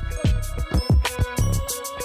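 Background music with a steady drum beat: deep kick-drum hits, sharp percussion strikes and held melodic notes.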